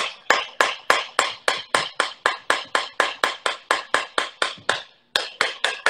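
A wire whisk striking a stainless steel mixing bowl of creamed butter and sugar in a steady rhythm, about three sharp ringing knocks a second. The strikes stop briefly about five seconds in, then resume.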